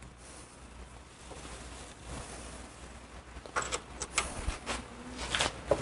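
Metal clinks and light knocks as a steel clutch hub and rivet die are handled and seated on a vise-mounted rivet tool. There are about half a dozen sharp clicks in the last two seconds after a faint hum.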